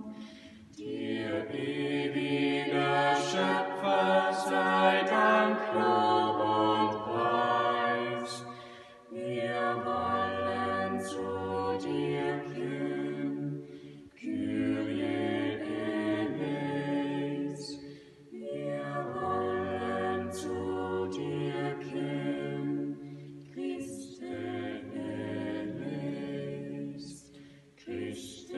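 Small mixed vocal ensemble of four, one man and three women, singing a cappella in harmony, with the man's voice carrying a low bass line. The song moves in long held phrases with short breaks for breath between them.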